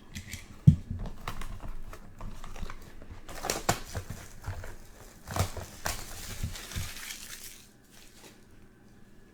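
Crinkling and tearing of plastic wrapping and handling of a sealed trading-card box as it is opened, in irregular bursts with a sharp thump about a second in; it goes quieter near the end.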